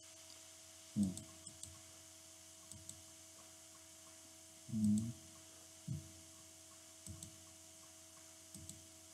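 Steady electrical mains hum from the recording setup, with a few faint computer mouse clicks and five short, low vocal sounds from the narrator, the strongest about halfway through.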